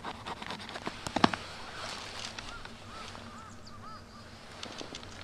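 Knife blade shaving thin curls off a stick to make a feather stick: a run of short scraping strokes and sharp clicks, the loudest about a second in, then quieter scraping and handling of the wood. A few short, high chirp-like squeaks come through in the second half.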